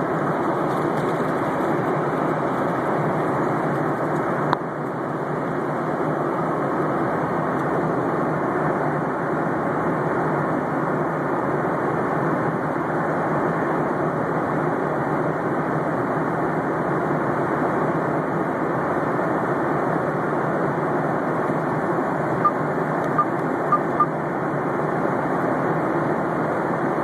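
Steady rushing drone of an aircraft in flight, engines and airflow heard from inside the passenger cabin. A single click comes about four and a half seconds in, and a quick run of short beeps sounds about three-quarters of the way through.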